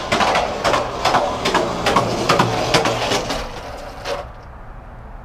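Skateboard rolling on a concrete walkway: a steady wheel rumble with irregular clacks as the wheels cross the sidewalk joints, stopping about four seconds in.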